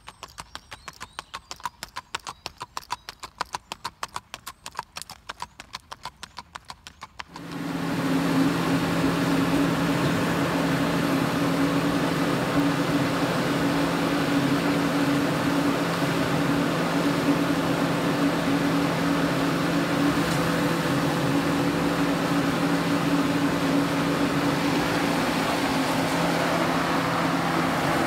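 Hoofbeats of a gaited horse in a quick, even rhythm. About seven seconds in they give way to a louder, steady engine hum with a constant low drone that lasts to the end.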